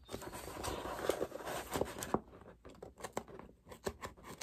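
Knife blade cutting the stitching out of a coated-canvas handbag seam: the canvas rustles as it is handled, and the threads snap as sharp, irregular clicks, which come as separate clicks in the second half.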